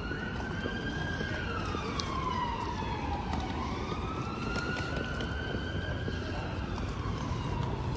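Emergency vehicle siren in a slow wail, its pitch rising and falling about once every five seconds, over a steady low background rumble.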